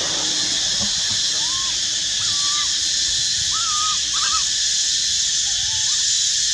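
An infant long-tailed macaque giving short, whistle-like coo calls, about five in a row with brief gaps between them. These are the contact calls of a baby macaque crying for its mother. A steady high-pitched hiss runs underneath.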